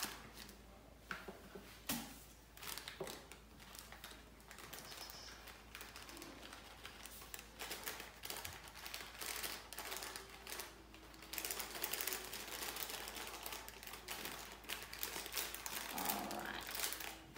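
Cornflour being poured and shaken out of a cardboard carton into a measuring cup: soft rustling with a run of light, irregular ticks and taps.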